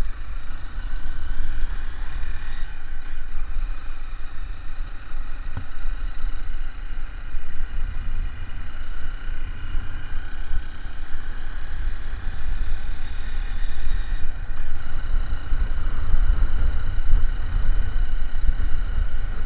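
Car driving along: steady low engine and road rumble.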